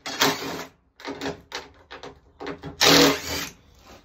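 Temporary brackets and tape being pulled off a repaired fibreglass bumper: irregular crackling, ripping and knocking, with a louder, longer rip about three seconds in.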